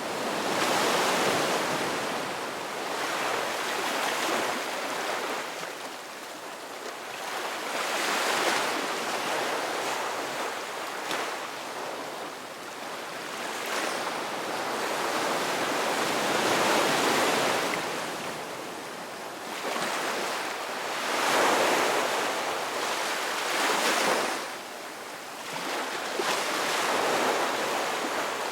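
Ocean surf: waves breaking and washing in, swelling and fading again every few seconds.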